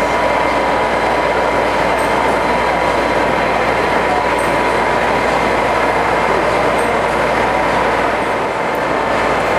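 Steady, loud vehicle running noise, like the ride noise heard aboard a moving train, with a thin steady whine held throughout.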